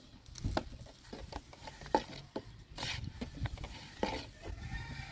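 Long thin wooden rolling pin working flatbread dough on a floured wooden board: rubbing and scraping with irregular light wooden knocks, and a brief swish about three seconds in.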